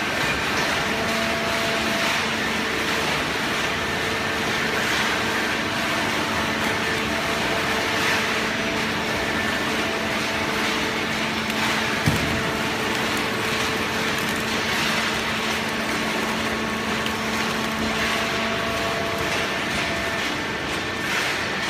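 Industrial hydraulic baler for shredded paper running: a steady machine hum with a constant drone over a wash of mechanical noise, and a single knock about twelve seconds in.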